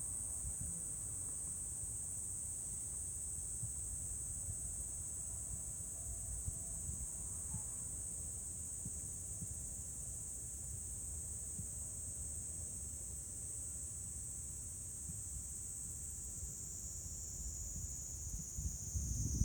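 A steady, high-pitched chorus of night insects such as crickets, ringing without a break and dipping slightly lower in pitch near the end, over a low rumble.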